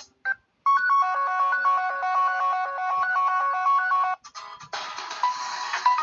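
Samsung Galaxy Pocket stock Android tones played one after another: a short melodic electronic tone of quick repeated notes that cuts off abruptly about four seconds in. After a brief gap, a busier tone with a percussive beat starts near the end.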